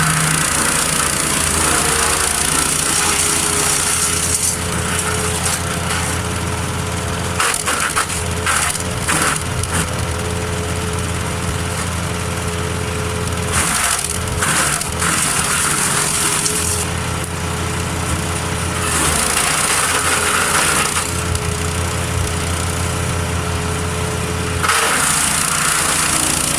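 Engine-driven wood chipper running steadily while branches are fed through. The chipping noise swells and fades in four spells, with a run of sharp cracks of snapping wood about eight seconds in.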